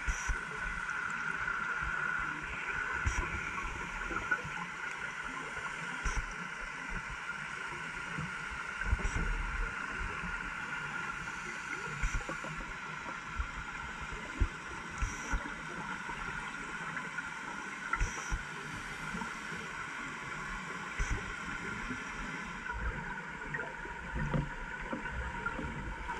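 Underwater ambience picked up by a diver's camera in its housing: a steady muffled hum with scattered low bumps, and faint short clicks about every three seconds.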